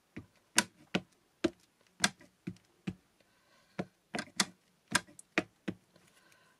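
A small ink pad dabbed repeatedly onto a clear acrylic stamp in a stamp positioning tool: about a dozen sharp plastic taps at an uneven pace of roughly two a second. The stamp is being re-inked because the first impression did not print fully.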